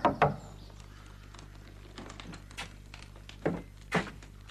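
A few scattered knocks and taps, with two louder thuds about three and a half and four seconds in.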